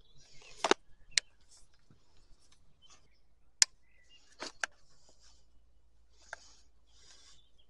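Small screwdriver scraping and prying at the plastic housing of a Stihl MSA 120 C battery chainsaw, with about five sharp clicks and taps of plastic and tools in between.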